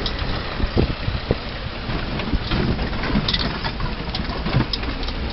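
A 4x4 driving slowly over a rough gravel dirt track, heard from inside the cab: a steady low engine rumble with scattered knocks and rattles as it goes over the bumps.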